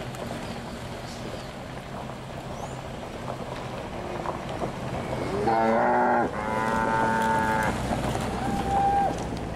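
Mountain bike rolling over a gravel road with wind on the helmet-mounted microphone. A little past halfway comes a loud, drawn-out pitched call in two parts of about a second each.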